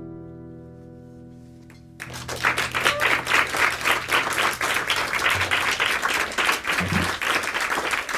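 The last strummed acoustic guitar chord rings out and fades. About two seconds in, applause breaks out and keeps going.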